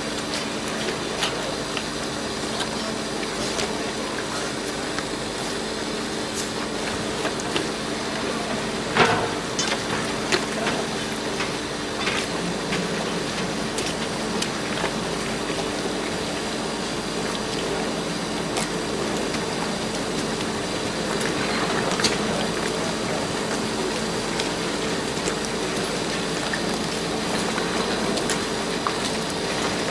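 A steady machine hum holding several low tones, over a hiss of running water, with scattered knocks and clicks, the sharpest about nine seconds in.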